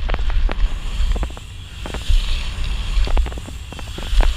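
BMX bike rolling fast over a paved track: wind buffets the microphone with a low rumble and hiss, and frequent sharp clicks and rattles come from the bike and its tyres on the surface.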